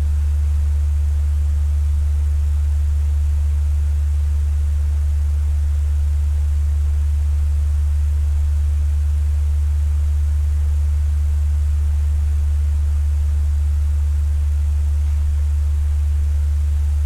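Fan running steadily: a constant low hum with a soft hiss above it, unchanging throughout.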